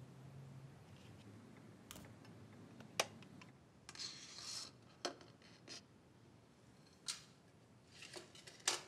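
Faint handling sounds: a glass plate scraping briefly across a tiled floor as it is slid under a door, with a few scattered sharp clicks before and after.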